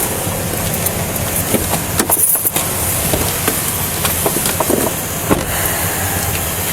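Steady rumble of a motor vehicle, with scattered light clicks and rustles over it.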